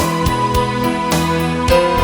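Background music: a gentle instrumental track with keyboard and plucked-string notes over a steady beat.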